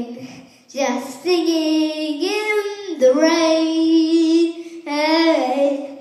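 A young girl singing in several phrases with long held notes, the longest near the middle.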